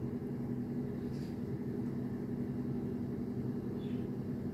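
Steady low hum holding a few level low tones, unchanging throughout, like a running motor or appliance.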